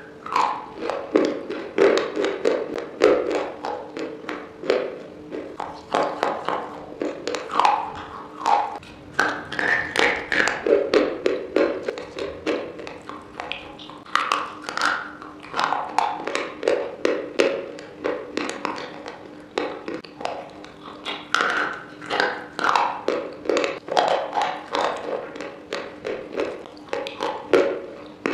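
Close-up biting and chewing of hard white chalk-like sticks: a dense, irregular run of sharp crunches and snaps, several a second, with wet mouth sounds between them.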